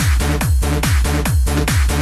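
Electronic dance music with a steady, fast, driving beat of punchy kick drums.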